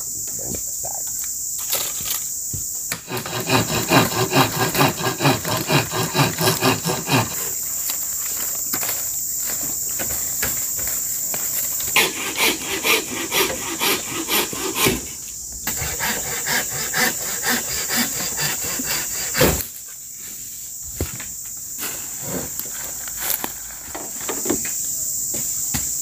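Wood being worked by hand in rhythmic back-and-forth strokes, about three a second, like sawing, in three runs of a few seconds each, with a sharp knock after the last run. Forest insects buzz steadily underneath.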